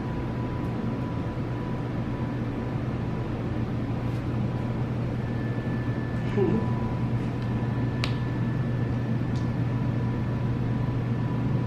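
Steady mechanical hum with a constant low drone and a couple of faint high steady tones, like an appliance or fan running. A brief faint squeak about six seconds in and a single click about two seconds later.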